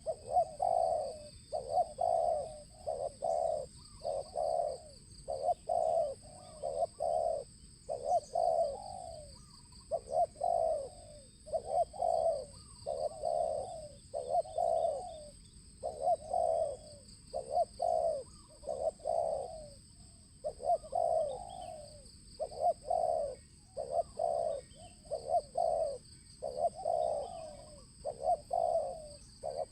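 Spotted dove cooing over and over, its low notes coming in short groups with brief pauses between them. A steady high-pitched whine runs underneath.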